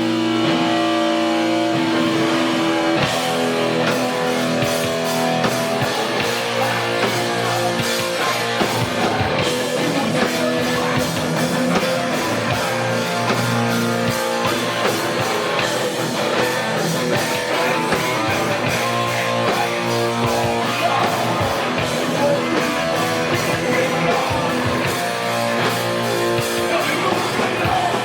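A live rock band playing loudly: a guitar chord held for a few seconds, then about three seconds in the drums come in and the full band plays distorted electric guitars over fast drum hits.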